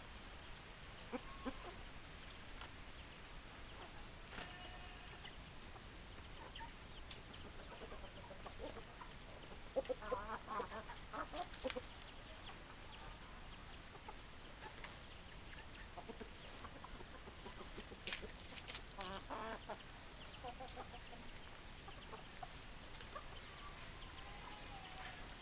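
Chickens clucking on and off, in short calls with two busier flurries of rapid clucks, one about ten seconds in and another about nineteen seconds in.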